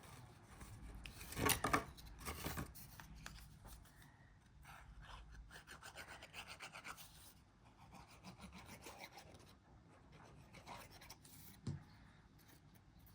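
Cardstock pieces being handled: faint paper rubbing and scraping against paper, with a couple of louder knocks early on and a sharp click near the end.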